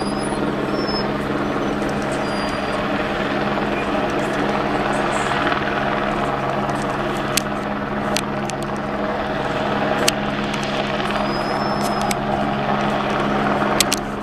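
Light single-rotor helicopter in flight, towing a pulling line during power line stringing: a steady rotor and engine drone with a constant low hum.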